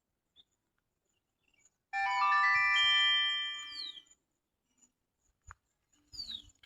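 Electronic chime like a ringtone: a rising run of held bell-like notes that stack up over about a second and a half, ending in a quick falling sweep. It starts about two seconds in, after near silence, and fades out by about four seconds.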